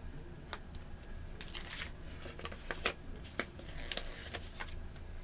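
Paper stickers being peeled from their sheet and handled over planner pages: short papery rustles with a few sharp taps.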